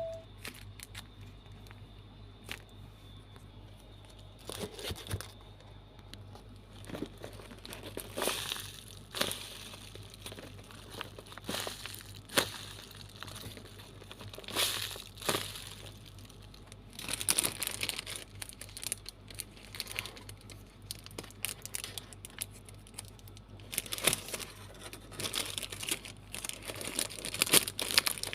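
Packaging crinkling and rustling in irregular handfuls as a squishy toy is packed, busier in the second half.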